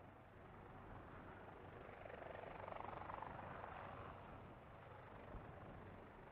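Faint sound of a Leonardo AW189 coastguard helicopter's rotors and turbines as it lifts into a low hover, swelling for a couple of seconds in the middle with a fast rotor chop.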